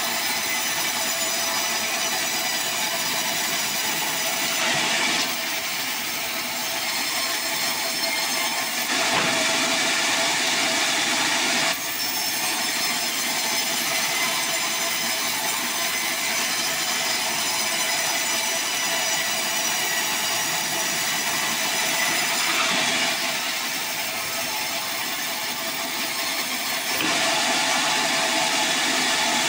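Band sawmill running with a steady high whine over a dense hiss, shifting in loudness and tone a few times.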